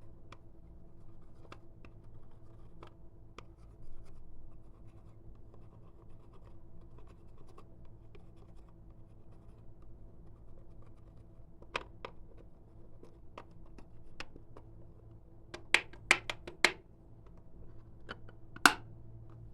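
Clear slime being handled and scraped, with faint crackling and scattered small clicks. A quick run of four loud, sharp clicks comes about three-quarters through, and one more loud click near the end.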